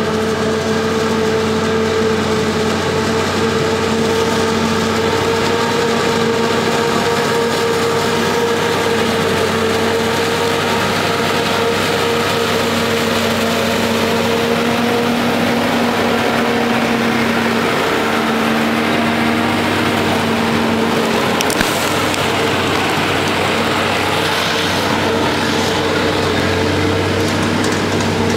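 Heavy farm machinery chopping corn silage: forage harvester and tractor engines running steadily with a continuous drone and a steady whine. A single sharp click comes about two-thirds of the way through.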